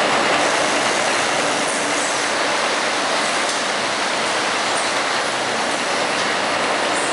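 Triple basket tumbler running, its conveyors carrying plastic baskets through the machine: a loud, steady mechanical rush with a few faint clicks.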